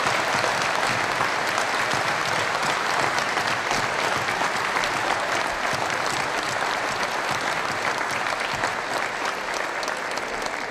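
Audience applauding: dense, steady clapping from a large crowd that eases slightly near the end.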